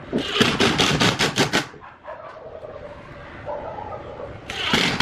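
Two bursts of rapid sharp knocks, about six a second, each lasting a second or more, with a pause of a few seconds between them.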